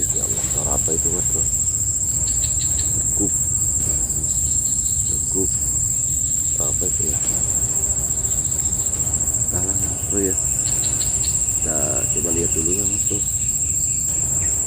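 A loud, continuous, high-pitched insect trill with a fine rapid pulse, over a low rumble, with a few short lower-pitched calls scattered through it.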